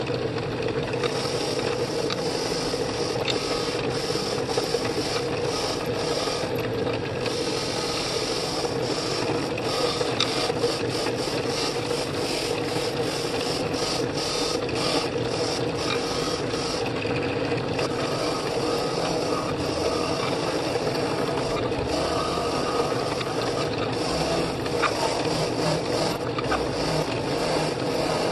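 Drill press spinning a wire cup brush against a rusty steel adjustable wrench, stripping the rust: a steady motor hum under a continuous rasping scratch that varies as the wrench is moved against the bristles.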